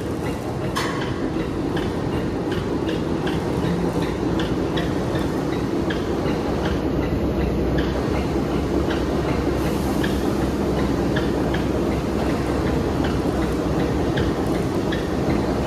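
Kobelco gyratory crusher running on hard iron ore: a loud, steady heavy rumble with frequent irregular sharp knocks and clatter of rock.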